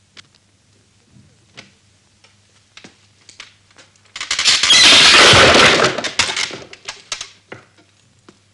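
A sudden loud crash of something breaking, about four seconds in, lasting about two seconds and tailing off into scattered clatters. A few faint knocks come before it.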